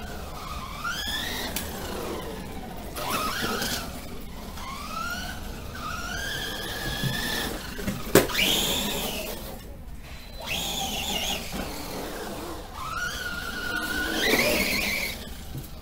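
Remo Hobby Dinosaurs Master 5 RC monster truck's brushless motor on 3S, whining up and down in pitch through repeated bursts of throttle. A single sharp knock comes about eight seconds in.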